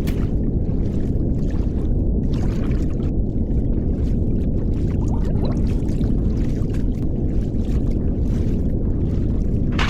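Deep, muffled water rumble and gurgling, dull and low as if heard from under the water, with faint thuds now and then.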